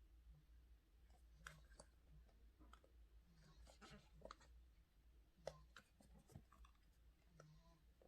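Faint, scattered clicks and light rustling of earbud boxes and packaging being handled, over a steady low hum.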